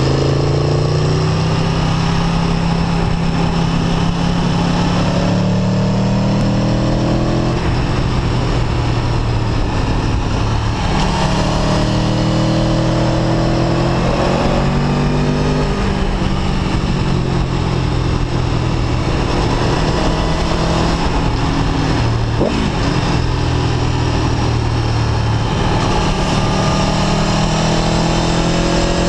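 Aprilia Tuono V4 1100 RR's 65-degree V4 engine pulling through the gears under way, its revs climbing and dropping back several times as the rider shifts, heard from the rider's seat with wind noise on the microphone.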